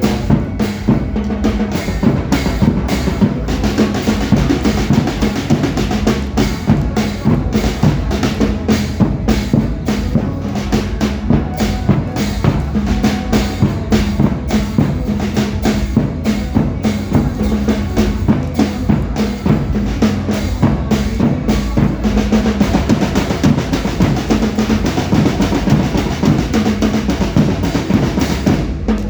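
Dance music with a busy, steady drum-kit beat and bass, played loud.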